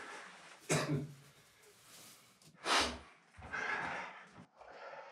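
A person's breath: two sharp bursts through the nose, about two seconds apart, like stifled snorts, followed by softer breathing and faint murmuring.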